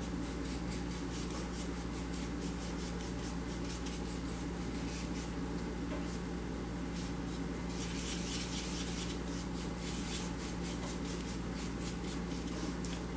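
Fine paintbrush rubbing and mixing paint on a palette tray: a soft, repeated scratching of brush strokes, denser about eight seconds in, over a steady low hum.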